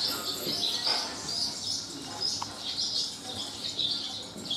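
Barn swallows chirping at the nest: a rapid, continuous run of high chirps.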